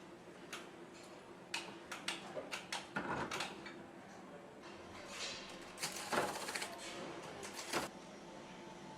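Clicks and metallic clinks of tools and engine parts being handled, with a busier run of rapid clicking about six seconds in, over a steady factory hum.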